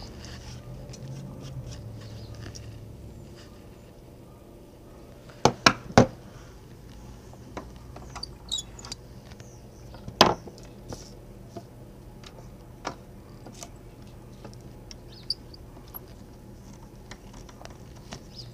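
Scattered light knocks, clicks and small scrapes of hand tools and wood being handled at a workbench: a hand brace with an auger bit, a bar clamp and a hickory board. There are three sharp knocks close together about five and a half seconds in, another about ten seconds in, and fainter ticks after that.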